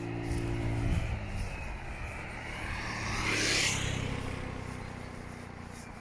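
A car passing on the road, its tyre and engine noise swelling to a peak about three and a half seconds in, then fading away.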